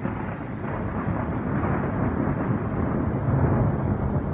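Thunder rumbling, building to its loudest about three and a half seconds in.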